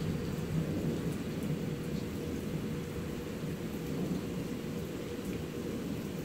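Thunder rolling as a steady low rumble during a thunderstorm, with rain falling and faint scattered drop ticks.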